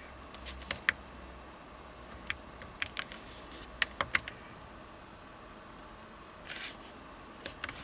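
Buttons on a Mercedes COMAND NTG 2.5 head unit clicking as they are pressed to scroll and open menus: a scattering of short, sharp clicks, some in quick pairs or threes, over a faint steady hum.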